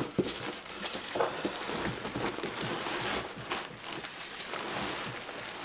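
Tissue-paper packing rustling and crinkling as hands dig through it inside a cardboard box, with a sharp knock at the very start.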